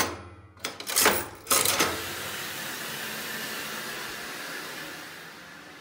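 Coin slide of a coin-operated top-load washer pushed in and pulled back with several metallic clunks as the quarters drop. Then a steady rushing hiss as the washer starts, which fades near the end.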